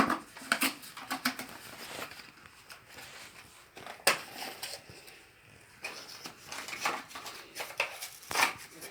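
Rustling of packaging and clicks and knocks of plastic parts being handled while a cordless vacuum cleaner is unpacked, with one sharp knock about four seconds in.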